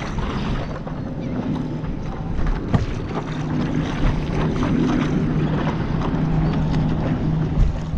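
Paddle strokes and water sloshing and splashing around a stand-up paddleboard moving through light chop, with wind on the microphone and a steady low hum underneath.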